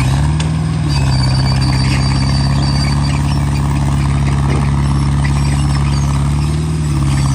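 Hydraulic excavator's diesel engine running steadily. Its pitch eases down slightly about a second in and lifts briefly near the end.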